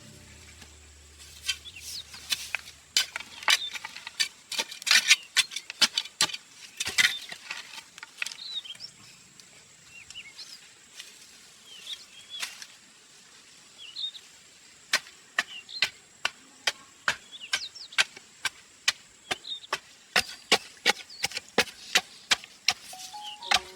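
Repeated sharp knocks, as of chopping on wood: uneven at first, then a steady stroke about one to two times a second through the second half. Small birds chirp between the strokes.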